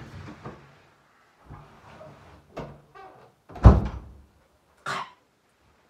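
Shuffling and handling noises, then one heavy thump about three and a half seconds in and a short rustle about a second later.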